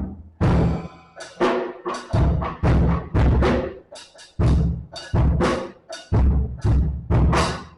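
Drum kit being played: bass drum and snare strokes in a steady beat of about two hits a second, each ringing out briefly.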